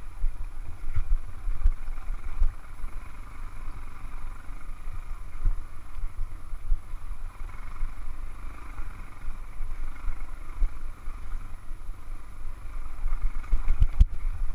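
Motorcycle riding over a rocky dirt trail: steady engine and wind noise with a low rumble and jolts from the bumps, heavier jolts near the end.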